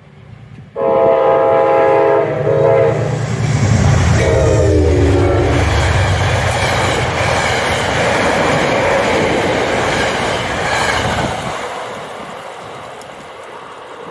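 Metro-North push-pull commuter train sounding its horn in two blasts as it runs through the station, the second blast dropping in pitch as the train goes by. After that the wheels rumble and clatter over the rails as the coaches pass, fading away near the end.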